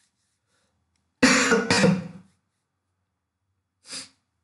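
A man clearing his throat, two harsh coughing pushes about a second in, then a short, fainter sound near the end.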